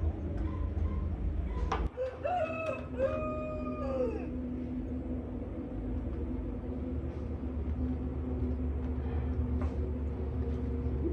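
A rooster crows once, about two seconds in: a single drawn-out call that rises, holds and drops away. A steady low rumble runs underneath.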